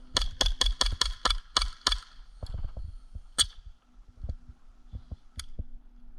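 Airsoft guns firing: a quick string of about ten sharp shots over two seconds. A single louder shot follows a little after three seconds, then scattered fainter shots.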